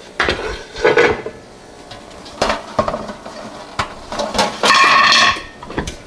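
Metal knocks and clinks from handling a pressure canner's lid and parts: a string of separate knocks, with a longer ringing clink near the end.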